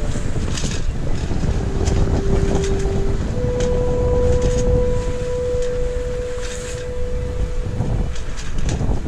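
Wind buffeting the microphone and water rushing past a sailing yacht's hull under way, with scattered short flaps. Two steady tones sound in turn: a lower one briefly, then a higher one held for several seconds through the middle.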